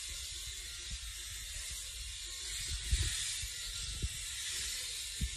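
Freebird FlexSeries electric rotary shaver running as it is worked over a bald scalp, a steady hiss, with a few soft knocks about three, four and five seconds in.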